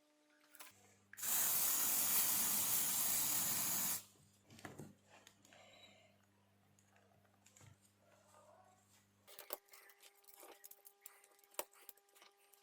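Steady spray hiss for about three seconds, from an aerosol can sprayed onto the panel's circuit board, followed by faint scattered clicks of small parts being handled.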